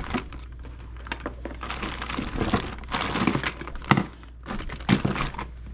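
Plastic bag full of small plastic toy figures crinkling and rustling as it is picked up and handled, the toys clicking inside, with two louder knocks about four and five seconds in.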